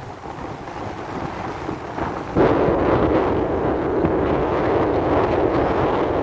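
Wind buffeting the microphone, a strong gust hitting about two and a half seconds in and staying loud.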